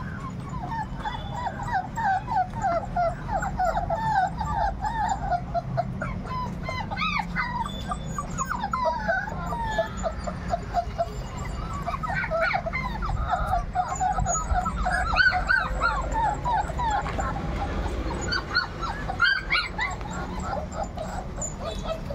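A litter of five-week-old Labrador puppies whimpering and whining together, a constant chorus of short, high, wavering cries overlapping one another. A few sharper yips rise higher now and then.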